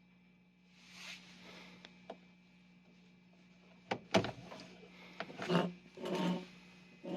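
Handling noises: a soft rustle, then a few sharp clicks and knocks with rubbing, over a steady low hum.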